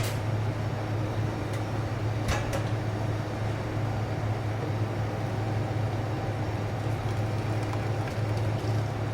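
Steady low hum of kitchen ventilation, with a couple of light utensil clicks about two seconds in.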